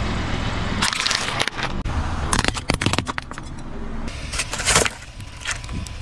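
A car tyre rolling over a plastic clamshell of blueberries, the plastic giving a quick run of sharp cracks and crunches over the low sound of the car. Then a tyre crushes a drink carton, which bursts with a loud splat about three-quarters of the way through.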